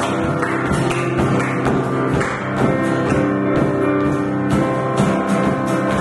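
Worship band playing an instrumental passage: guitar over a steady drum beat, with no singing.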